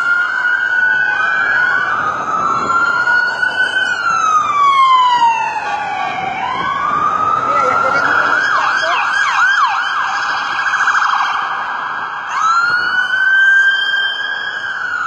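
Several police car sirens wailing together, their slow rising and falling sweeps overlapping. About eight seconds in, one switches to a rapid yelp, and a few seconds later a wail starts up again.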